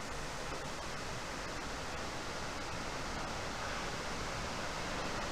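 Multi-layered waterfall, its water falling and rushing in a steady, even hiss.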